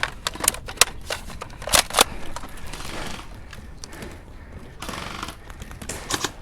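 Airsoft guns firing: a string of sharp cracks and clicks, the loudest in the first two seconds, with fainter scattered shots later on.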